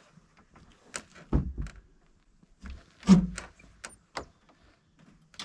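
Knocks and thumps of things being shifted about inside a small wooden shed, with its plank door bumping. The loudest thump comes about three seconds in.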